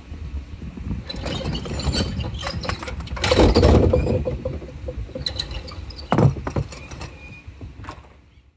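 Homemade string pin-setter on a backyard bowling lane resetting the pins: the pins clatter and knock as they are hauled up on their strings into their tubes, and then there is a single heavier knock as they are lowered back onto the deck.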